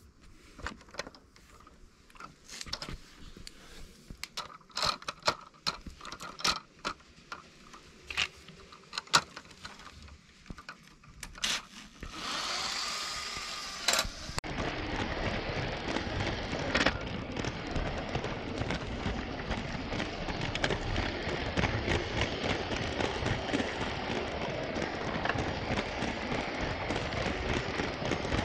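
Scattered sharp clicks and knocks, then from about halfway a steady rattling run with dense fast clicking: a Lego 9V train rolling along plastic track, heard from a camera riding on one of its wagons.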